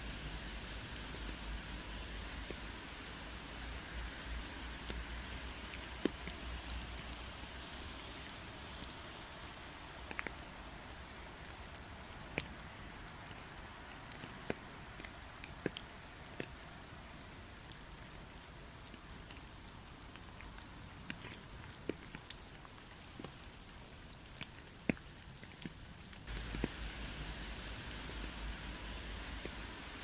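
Steady rain, an even hiss with scattered close drops ticking sharply. A low rumble comes in near the end.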